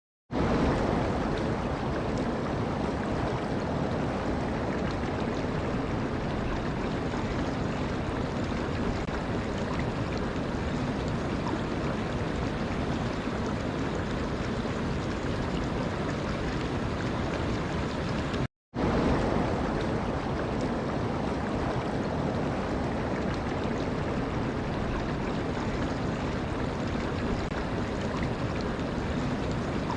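Running water, a steady even rush with no distinct splashes. It cuts out for a split second about two-thirds of the way through, then resumes at the same level.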